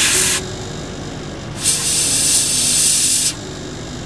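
Airbrush spraying black pre-shading paint in two bursts of hiss: one cuts off just after the start, and another runs for about a second and a half in the middle. A steady low hum continues underneath.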